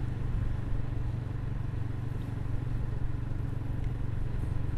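Motorcycle engine running steadily while riding at an even road speed, heard from the rider's seat, with steady road and wind noise.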